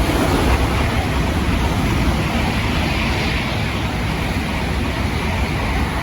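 Tokaido Shinkansen train passing through the station at speed without stopping: a loud, steady rush of air and wheel noise that begins to fade near the end.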